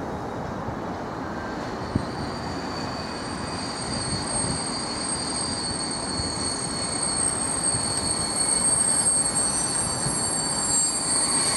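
Freight train of bogie hopper wagons rolling past with a steady rumble, a single sharp click about two seconds in. A steady high-pitched squeal from the wheels joins it at about the same point and holds on.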